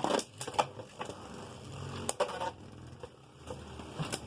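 Beyblade spinning tops in a plastic stadium, one of them a Lord Achilles: a loud rattle right at the start as they land and clash, then a steady low whirr broken by scattered sharp clacks as they collide.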